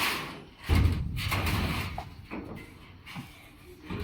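Metal electrostatic filter module sliding out of a BBQ smoke purifier's housing: a scraping slide begins about a second in and lasts a little over a second, followed by a couple of light knocks.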